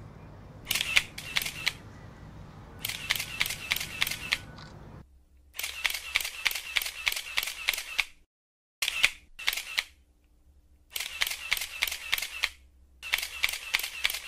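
Camera shutter clicks in rapid bursts, about six bursts of several clicks each with short pauses between them.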